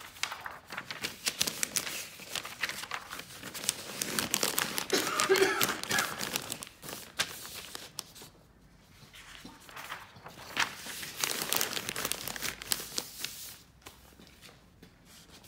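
Paper masking sheets (paper car floor mats) crinkling and rustling as they are crumpled and pushed into place around a car seat before spraying. It comes in two spells: a long one at the start and a shorter one about ten seconds in.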